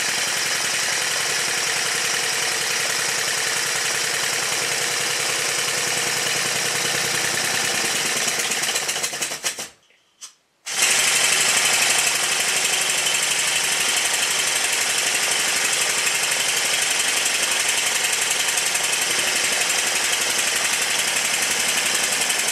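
Stuart triple expansion model steam engine running on compressed air during its running-in, a fast, even beat of exhaust and moving parts with a strong hiss. The sound drops out for about a second roughly halfway through, then resumes a little louder.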